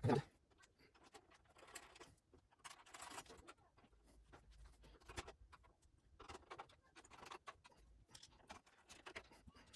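Faint, scattered light clicks and rustles of small hardware or cables being handled.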